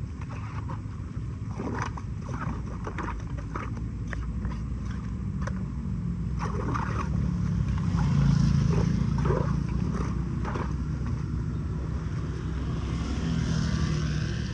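Floodwater rushing into a storm drain as a steady low rumble, with scattered short knocks and scrapes over it; the rumble swells about eight seconds in.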